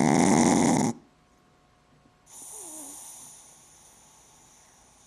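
Pug snoring: a loud snore that cuts off about a second in, then after a pause a softer, hissing breath with a falling tone that fades away.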